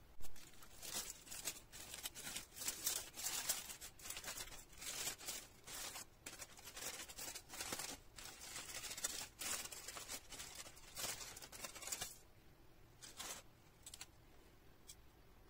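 A short knock at the very start, then aluminium foil crinkling and crackling in irregular bursts as it is peeled off the bottom of a baked sponge cake layer and crumpled. The crackling stops about twelve seconds in, with a few brief rustles after.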